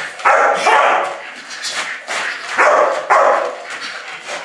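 Large black shepherd-type dog barking repeatedly in short, loud bursts on the leash, the aggressive barking of a dog confronted by an advancing decoy in protection training.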